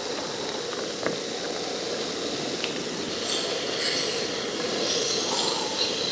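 Pork and vegetables sizzling in a hot carbon steel pan as they are stirred, with a clink of the utensil against the pan about a second in.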